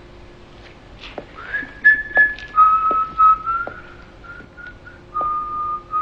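A person whistling a slow tune: a single clear note that glides up about a second and a half in, moves between a few held notes and ends on one long held note. A few short taps are scattered through it over a faint steady hum.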